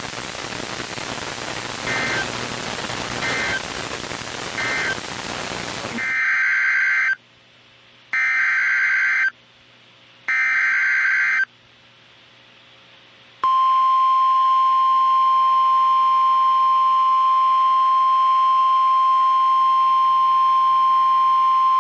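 Weather radio static hiss with three faint short blips, then three roughly one-second bursts of Emergency Alert System SAME header data tones, then the steady 1050 Hz NOAA Weather Radio warning alarm tone held for about eight seconds, signalling a new warning about to be read.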